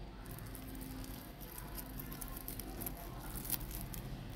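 Crisp fried potato chips crackling faintly as they are handled, with scattered small crackles and one a little louder about three and a half seconds in.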